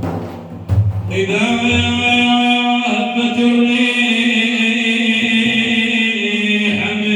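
A male voice singing one long held note of an Islamic madih praise song, starting about a second in after a few drum beats and held almost to the end.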